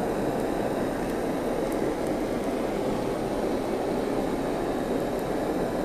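Handheld kitchen blowtorch flame running steadily, a constant rushing hiss, as it chars the tops of steamed corn kernels.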